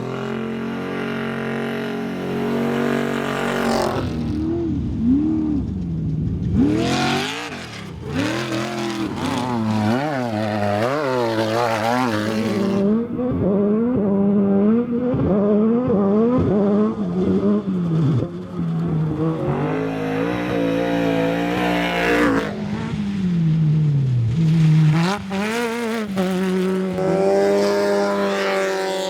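Off-road race car engines revving and accelerating, one vehicle after another, the pitch repeatedly climbing and dropping with throttle and gear changes.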